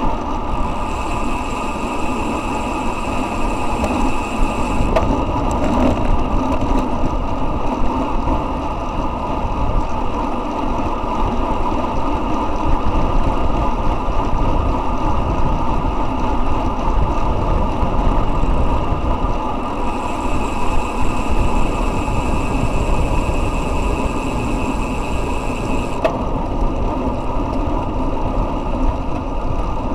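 Steady rush of wind on the microphone of a camera mounted on a road bike riding at about 40 km/h, mixed with tyre noise on asphalt. A faint high whine comes in twice, early on and again about two-thirds of the way through.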